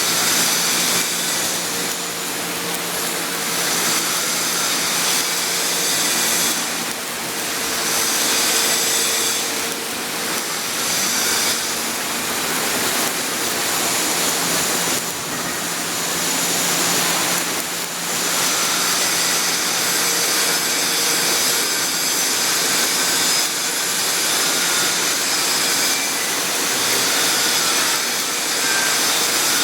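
Arc welding on a 6-inch carbon steel pipe: a steady, rough hiss that swells and fades every few seconds, over a faint low hum.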